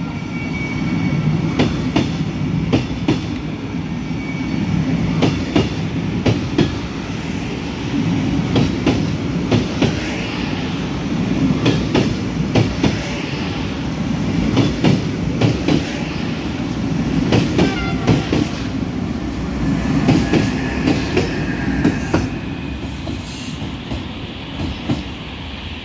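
I11 passenger coaches rolling past as the train pulls out, their wheels clicking in a steady run of clacks over rail joints and points under a low rumble. Now and then there is a faint, brief wheel squeal.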